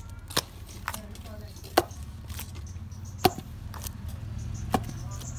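Wooden pestle pounding steamed glutinous rice in a mortar. Sharp knocks come about every second and a half, with fainter knocks between them.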